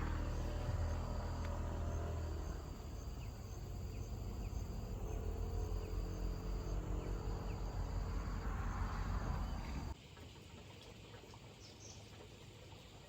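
Insects trilling in long high stretches over a steady low rumble of wind or road noise; about ten seconds in the rumble cuts off abruptly, leaving a quieter outdoor ambience with faint high chirps.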